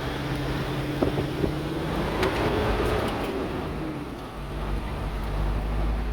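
Car engine running steadily while driving slowly, with a couple of knocks about a second in.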